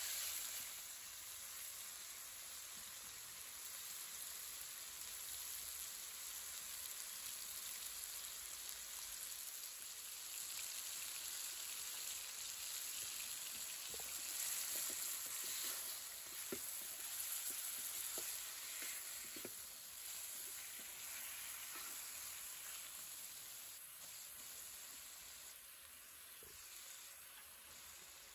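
Chunks of raw chicken breast sizzling in hot oil in an enamelled steel pan as they start to brown: a steady high hiss. A plastic spatula stirring the pieces makes a few light scrapes and taps now and then.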